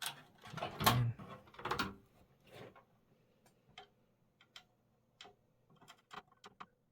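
Screwdriver driving a screw into a motherboard standoff in a PC case. There are louder knocks and scrapes over the first two seconds, then a string of small, irregular clicks.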